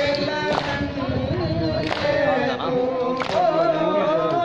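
Group of male mourners chanting a nauha, with a sharp slap of chest-beating (matam) in unison roughly every second and a half.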